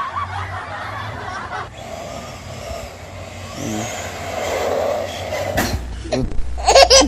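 Battery-powered RC toy car driving fast, its electric motor whirring and growing louder around the middle as it passes close. Laughter breaks in near the end.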